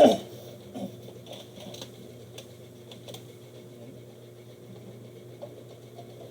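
A short loud knock or sound at the very start. After it, faint scattered clicks and taps of small objects being handled, over a steady low hum.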